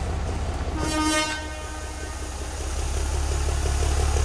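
Small diesel locomotive sounding one short horn toot about a second in, over the steady low rumble of its engine, which grows louder near the end.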